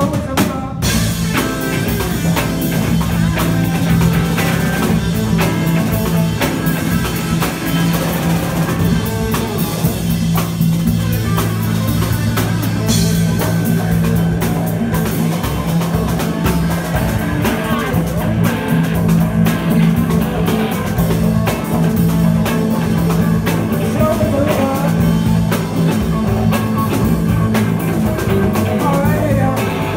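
Live rock band jamming loudly: electric guitar playing over a busy drum kit and cymbals, with low sustained notes held underneath.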